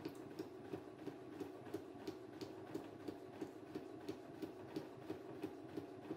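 Unthreaded electric sewing machine stitching slowly through a sheet of paper: a steady motor hum with a tick from each needle stroke, about three a second.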